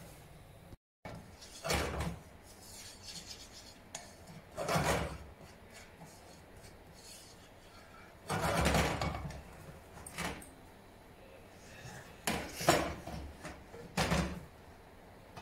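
Cookware handled on a gas stovetop: a series of separate short scrapes and knocks of a steel pot, its glass lid and a metal pan being moved and stirred with a spatula. The longest scrape comes just past the middle.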